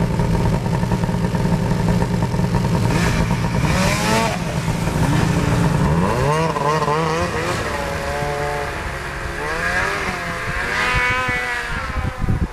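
Snowmobile engines idling close by with a steady hum. About four seconds in they start revving, and the engine note swings up and down as the sleds pull away across the snow.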